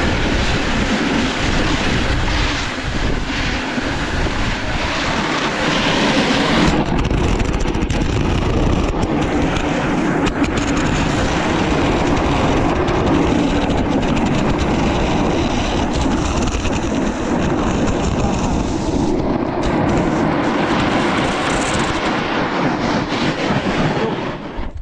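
Snowboard skidding and scraping down a steep, frozen piste, its edge unable to bite into the ice: a loud, continuous rushing scrape that cuts off just before the end.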